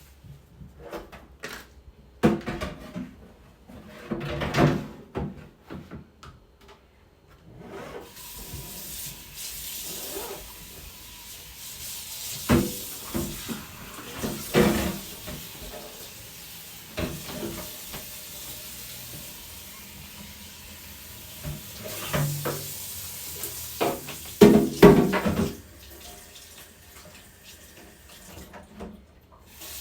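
Kitchen tap running into a sink, starting about a quarter of the way in and shutting off just before the end. Knocks and clatter of things being handled in the sink come through it.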